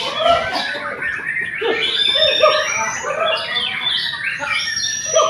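Several white-rumped shamas (murai batu) singing at once: a dense tangle of overlapping whistled phrases, rising glides and chattering notes with no pause.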